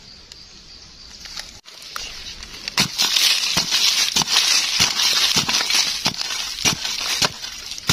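Digging in dry soil: quiet at first, then from about two seconds in a steady crunching and scraping of earth, with sharp strikes about every half second.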